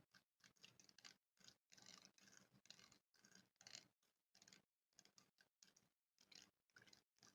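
A spoon scratching on a microphone: a run of faint, short scratching strokes, about two or three a second, with brief dead silences between them.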